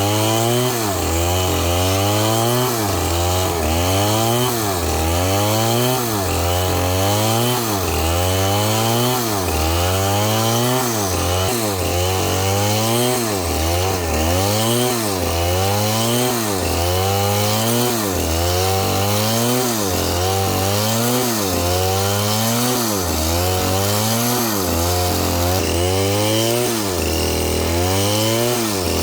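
Two-stroke chainsaw cutting into a palm trunk. Its engine pitch rises and falls about once a second, in a steady rhythm, as the saw is worked in the cut and loads up.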